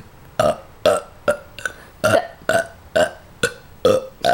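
Deliberate burping on demand: a run of about ten short burps, evenly spaced about two a second, burped out as a tune.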